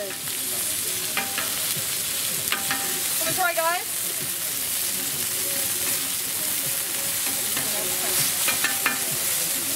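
Chicken thighs sizzling steadily on a hot flat-top griddle.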